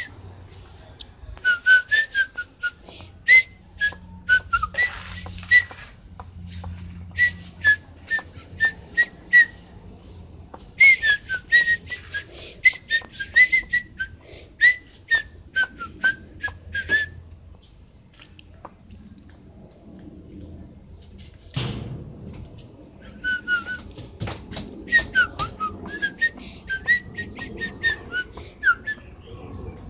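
A bird singing: runs of short, sharp whistled chirps in repeated phrases, with a pause a little past the middle. One thump a little over two-thirds of the way through, and a faint low steady hum underneath.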